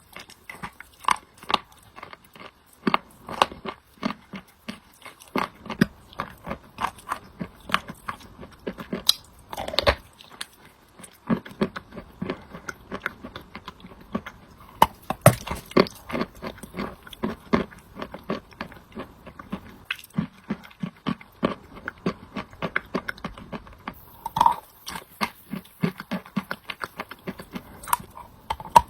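A person biting and chewing wet chalk coated with clay paste: short crunches and clicks, a few each second.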